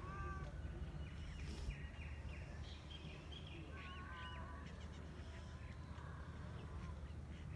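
Birds chirping and calling faintly over a low, steady outdoor rumble: short whistled calls at the start and again around four seconds in, with runs of quick chirps between about a second and a half and three seconds.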